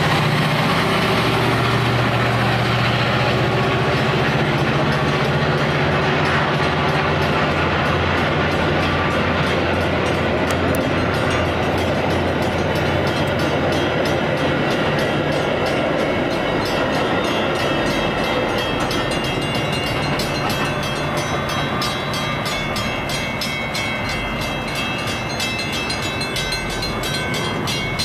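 Metra MP36PH-3S diesel locomotive passing with its engine running, followed by stainless-steel bilevel commuter coaches rolling by. The engine's low drone fades over the first several seconds, leaving the rumble of the cars with steady clicking of wheels over the rail joints.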